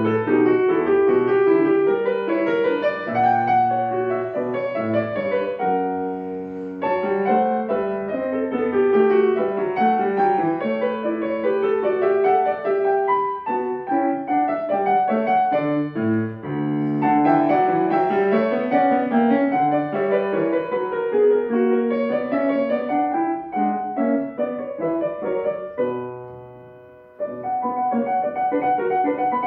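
Grand piano played solo, classical pieces. Near the end a held chord dies away, and a second later the playing starts again.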